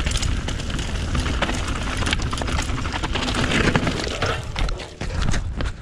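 Mountain bike ridden fast down a rough forest trail, heard from a camera on the bike or rider: wind rushing over the microphone and the low rumble of tyres on dirt, with a running clatter of the bike over roots and rocks. The sound turns choppier with a few sharp knocks near the end as the trail gets steeper and rockier.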